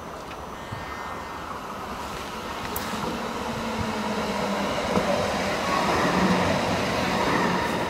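Light rail tram approaching and passing close by: a steady rumble of wheels on the rails with a low motor hum, growing louder and peaking about six seconds in.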